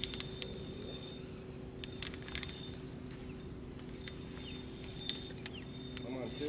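Light, irregular mechanical clicks and ticks over a steady low hum.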